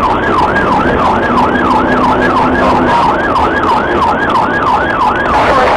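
Police car siren on yelp: a fast, rising-and-falling wail repeating about two to three times a second, heard over the cruiser's engine and road noise.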